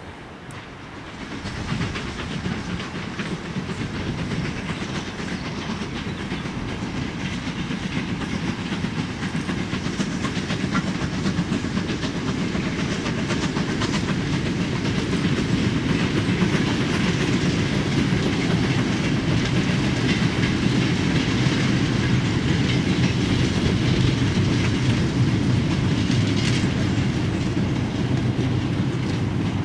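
Freight train of mineral wagons passing on the line, its wheels clicking over the rail joints and the wagons rattling. The sound builds from about a second and a half in and stays loud.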